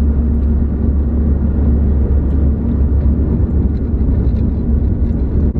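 Steady low road and engine rumble heard inside the cabin of a moving car, with no sharp events.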